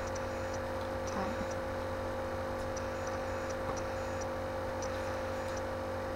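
Steady low electrical hum, with faint high ticks here and there.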